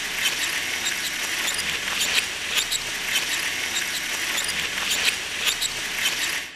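Audience applauding, a dense crackle of many claps that cuts off suddenly at the end.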